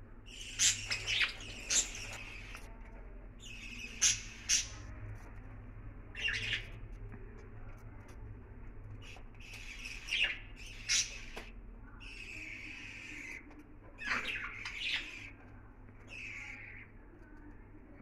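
Budgerigars chirping and squawking: short, sharp calls in clusters every second or two, over a low steady hum.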